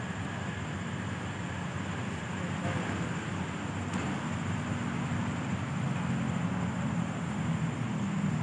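Steady low rumble of outdoor background noise that grows a little louder in the second half.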